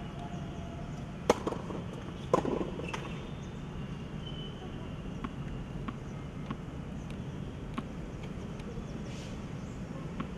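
Tennis ball sounds on a hard court: two sharp hits about a second apart near the start, then light, irregular taps of the ball being bounced before a serve.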